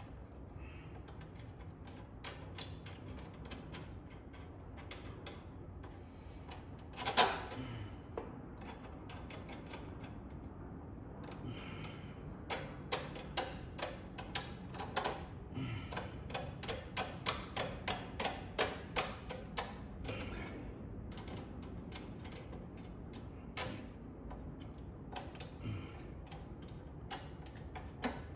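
Hand tools working on a motorcycle's wheel hardware: a ratchet wrench clicking through a long run of quick strokes, with scattered metal taps and one sharp metal clank about seven seconds in.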